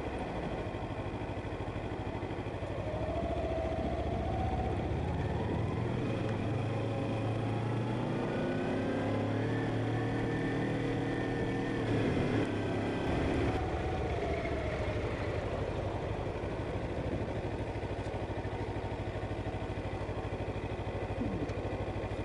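Motorcycle engine running under way, revs climbing for a few seconds near the middle and then dropping back, over a steady low rumble and wind-like noise.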